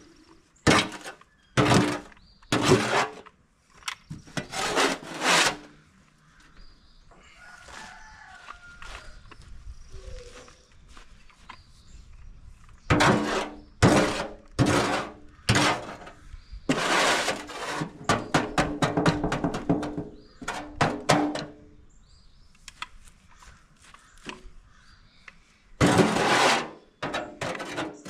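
Chicken manure and leaves being scraped and scooped into a cast iron tub for a worm bin: a series of harsh scraping strokes, some in quick runs, many with a low ringing tone from the metal.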